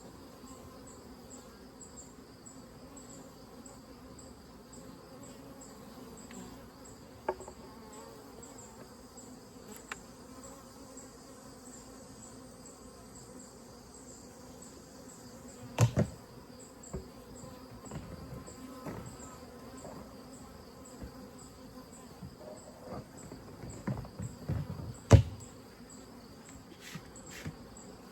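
Honeybees buzzing steadily around an opened hive, with a high, regularly repeating insect chirp over the top. A few sharp knocks stand out, the loudest about halfway through and near the end.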